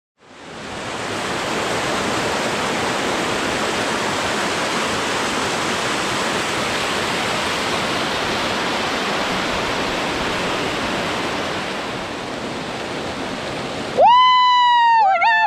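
Rushing water of a small woodland waterfall cascading over rocks, a steady even rush that fades in over the first second. About a second before the end it cuts to a louder high pitched melodic sound, likely music.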